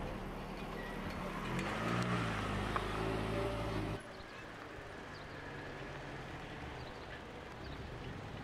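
A motor engine running steadily, its pitch bending up and down about two seconds in. After a sudden cut about four seconds in, a quieter, steady engine hum continues.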